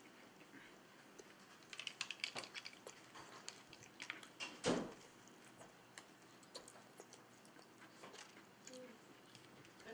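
Small clicks and rustles of someone eating at a table, handling food and tableware, with a quick cluster of clicks about two seconds in and one louder short thump about halfway.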